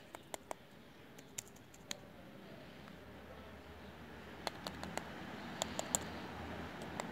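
Irregular light clicks and taps from a dry twig knocking and scratching on hard, dry ground during play with a cat, in small clusters early on and again about four to six seconds in. A low rumble grows slowly louder underneath from about halfway through.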